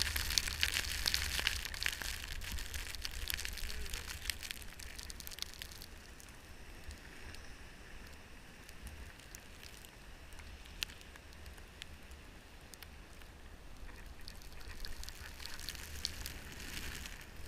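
Crackly hiss of snow with many small clicks, louder for the first six seconds and again near the end, over a low wind rumble on the microphone.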